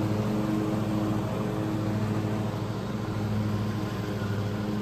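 The Briggs & Stratton 24 hp twin-cylinder engine of a Craftsman riding lawn mower running steadily, heard from the driver's seat.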